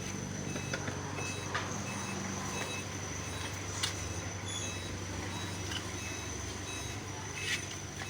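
Steady low machine hum, with a thin high steady whine above it and a few light clicks and taps.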